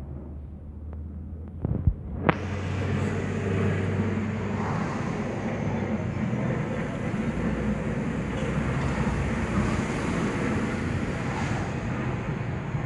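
Car driving through city traffic, heard from inside the cabin: a low hum and a few knocks, then about two seconds in, after a sharp click, steady road and wind noise comes in and carries on.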